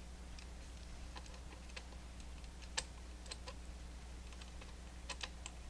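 Small, scattered metal clicks and ticks of an inch-pound torque wrench working scope mount screws, with a sharper click about halfway through and a quick run of clicks near the end.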